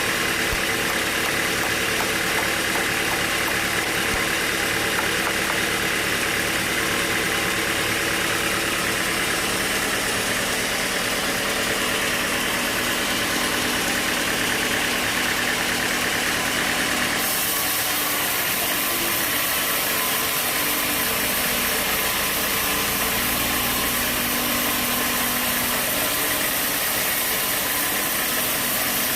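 Sawmill machinery's engine running steadily at a constant level. The sound shifts abruptly about two-thirds of the way through.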